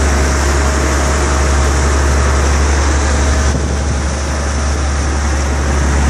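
Fishing boat's engine running steadily underway, with the rush of water from its wake.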